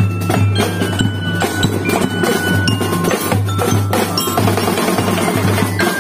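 Marching-band bell lyres (glockenspiel lyres) struck with mallets, playing a melody in quick ringing notes over drums, with a steady low hum underneath.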